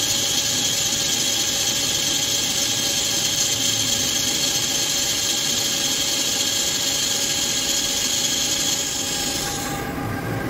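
CNC lathe turning a ductile iron roll: the insert cutting the iron under flood coolant, a steady high-pitched cutting hiss over the lathe's steady machine tones. About nine and a half seconds in, the high hiss drops away while the machine keeps running.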